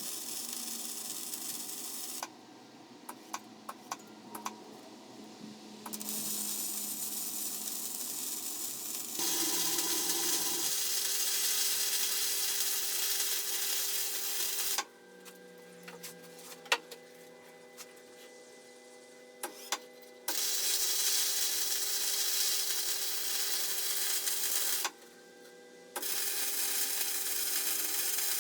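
MIG welding with gasless flux-core wire: the arc crackles and hisses in about five runs of a few seconds each, each cutting off suddenly. Small sharp ticks fall in the pauses between runs.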